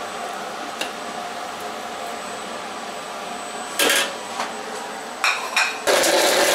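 Steady kitchen background hum, broken about two-thirds of the way in by a loud metal clatter of cooking utensils and dishes, then a few lighter clinks; near the end a louder steady rushing noise takes over.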